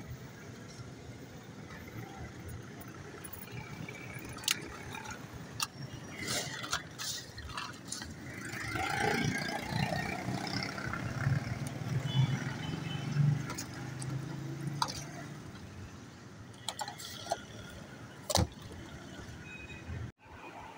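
Scattered sharp clicks and knocks of a spice shaker and utensils being handled over a bowl of fries, against steady street noise. A low hum and some faint voices swell in the middle.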